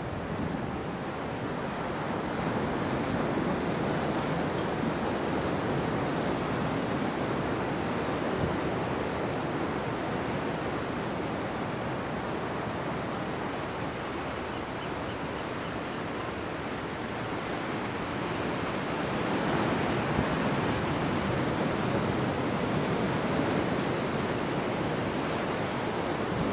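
Ocean surf breaking and washing over a rocky shore, a steady rush of water that swells a few seconds in and again about two-thirds of the way through.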